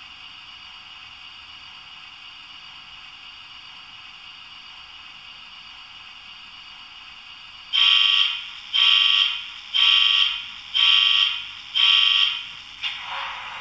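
Sound decoder of a DCC sound-fitted Class 66 model diesel locomotive playing a steady idling diesel hum through its small onboard speaker. About eight seconds in it sounds five loud, even tones about a second apart, and a rougher engine sound starts just before the end.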